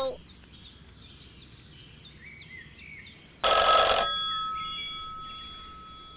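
Telephone ring sound effect: one loud bell-like ring about three and a half seconds in, its tones ringing on and fading away over the next two seconds.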